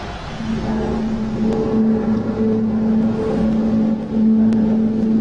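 A low, steady drone that swells and fades a little, over a rumbling background, starting about half a second in. This is an amateur recording of the so-called 'strange sounds' of unknown origin reported in the sky over cities worldwide.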